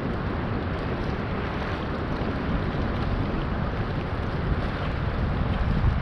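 Wind buffeting the microphone: a steady low rumble that gusts a little louder near the end.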